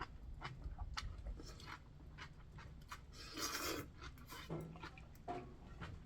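Someone eating ramen noodles: small wet mouth clicks and chewing, with one longer slurp about three seconds in.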